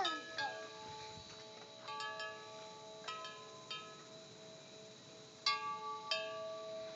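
Wind chimes ringing: about eight separate strikes, in loose irregular clusters, each leaving several clear tones ringing on for a second or more, with a faint steady high tone underneath.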